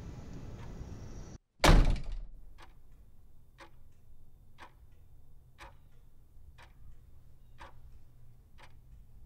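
A low rumble cuts off abruptly, then a single heavy slam with a short ringing tail, followed by a clock ticking steadily about once a second.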